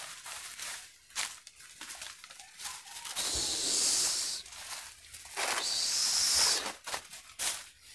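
Footsteps crunching and rustling through dry leaf litter, with scattered crackles and two longer rustles of dry leaves, about three seconds in and again about five and a half seconds in.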